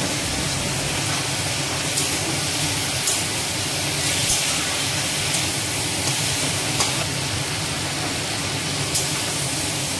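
Steady hiss of food cooking in pans on a lit two-burner gas stove, with a few sharp, irregular ticks.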